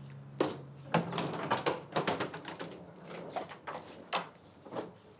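Footsteps and a wheeled suitcase being pulled through a doorway: a run of irregular light clicks and knocks, two or three a second.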